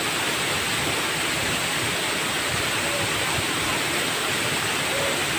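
Waterfall rushing steadily, a constant, even roar of falling water.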